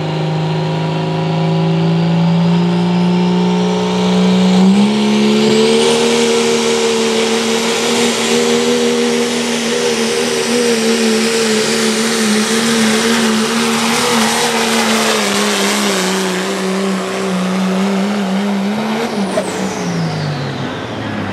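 A 2012 Dodge Cummins pulling truck's 6.7-litre inline-six turbodiesel runs at full throttle under the load of a pulling sled. Its pitch climbs and steps up about five seconds in, then holds high with a slight waver. A high turbo whistle rises as boost builds and falls away near the end as the engine drops off.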